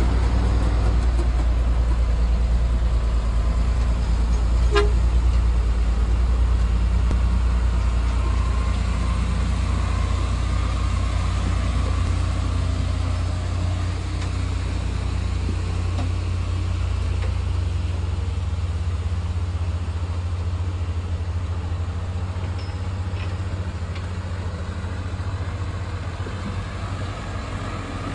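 Low, steady rumble of a heavy vehicle's engine on the move, easing off a little in the second half, with a brief horn toot about five seconds in.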